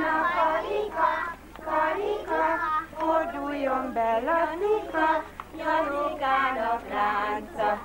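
Small children singing a song together, joined by a woman's voice, in short phrases with brief breaks between them.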